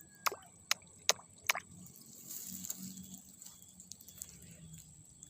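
Water dripping and splashing: five sharp drops in the first second and a half, then a softer wet stir, with a steady high insect trill behind.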